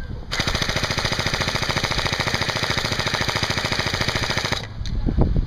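Airsoft electric gun firing one long full-auto burst of rapid, evenly spaced shots. It starts about a third of a second in and stops about four and a half seconds in.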